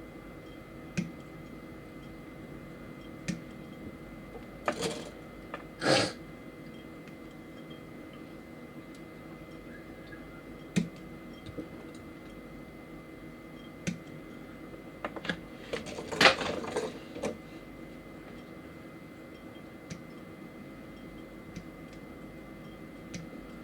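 Sharp, scattered clicks and snaps of small plastic model-kit parts being clipped off their runners and handled, with a busier run of clicking and plastic rattle about two thirds of the way through.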